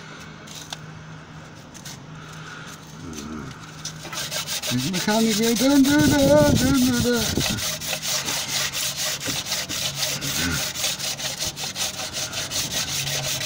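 Sandpaper rubbed back and forth by hand over the cast-iron deck face of a Morris Minor engine block, cleaning it for a new head gasket. It is a quick, even scraping at about five strokes a second that starts about four seconds in. A man's voice hums briefly around six seconds in.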